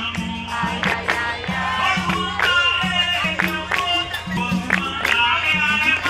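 Capoeira roda music: voices singing together over hand clapping and percussion playing a steady, repeating beat.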